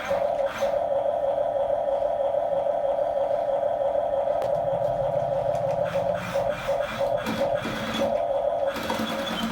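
Small electric motors and gears of a radio-controlled toy construction vehicle running with a steady whine, with scattered clicks and knocks in the second half.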